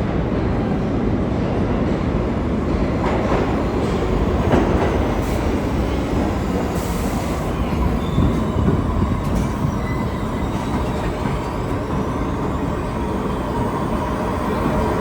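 New York City Subway R62A train running, with a steady rumble of wheels on rail. A faint high wheel squeal comes in over the second half.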